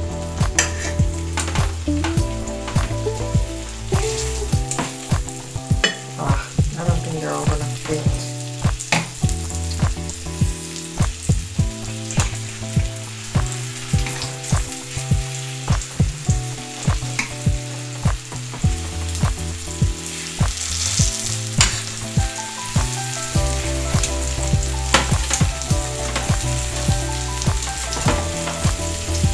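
Flour-dredged chicken breasts frying in butter in a stainless steel pan, a steady sizzle. A metal fork clicks and scrapes against the pan, about one to two times a second, as the pieces are pressed and moved.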